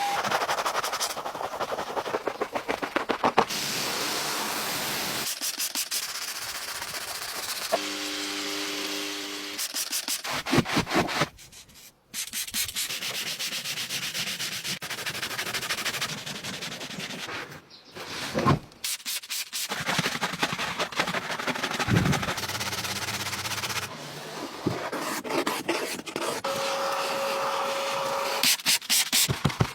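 Scrubbing and rubbing sounds of car detailing work, with brushes or pads worked against the car's surfaces. The sounds come as a string of short clips that cut abruptly from one to the next, several of them made up of rapid runs of strokes.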